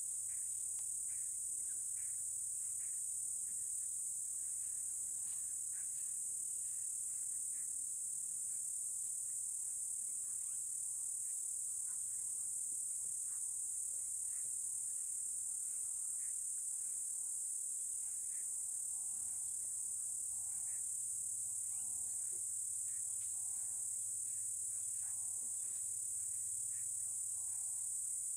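Steady high-pitched drone of an insect chorus, with short faint chirps scattered throughout.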